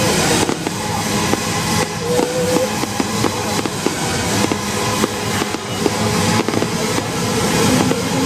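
Fireworks going off in quick succession: a dense run of bangs and crackles, with music playing underneath.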